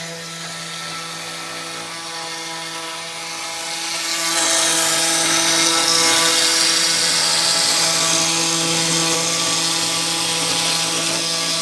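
CNC router spindle running steadily with a whine, its bit cutting a wooden panel. The cutting hiss grows louder about four seconds in.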